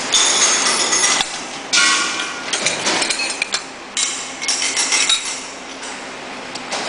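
Metal clanking and clinking in a run of sudden bursts, several in a few seconds, with some metallic ringing.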